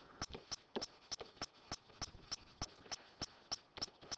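Faint, quick clicks of a stylus tip on a writing tablet while handwriting, about four clicks a second.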